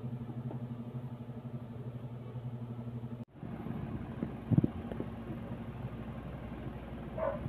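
Steady low motor hum with a fast flutter, cut off abruptly about three seconds in; a similar hum resumes, with a single thump about a second later.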